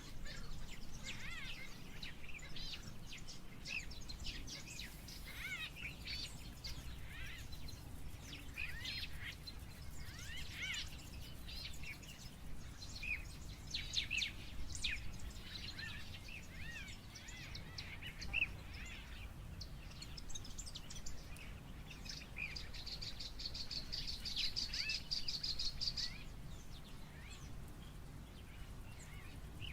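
Wild birds chirping and calling, many short rising and falling notes overlapping, with a fast buzzing trill for a few seconds near the end over a steady low rumble.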